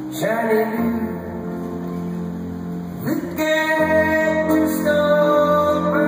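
Live performance of a slow song: a male singer's voice sliding up into long held notes, over piano and sustained low accompaniment.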